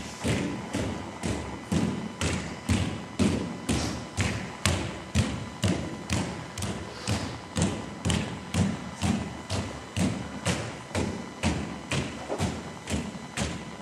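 Footsteps of several dancers stepping in unison on a dance floor, a steady, even thud about twice a second.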